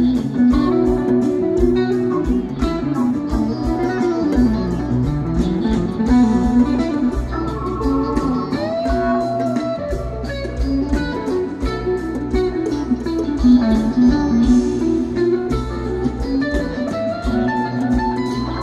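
Background music: a guitar-led instrumental with plucked electric guitar playing a melody over a steady bass line.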